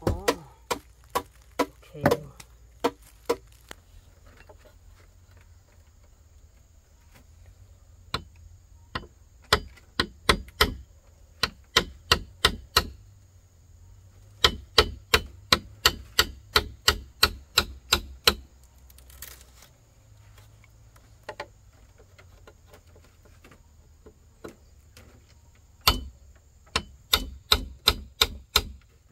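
Repeated sharp knocks of blows from a hand tool, about three a second, coming in runs of several seconds with pauses in between.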